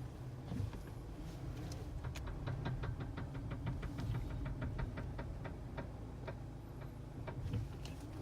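Rapid, evenly spaced clicking from a worn CV axle, roughly four clicks a second, starting about two seconds in and stopping near the end, over the low rumble of the moving car; the owner takes it for a bad CV axle that needs replacing.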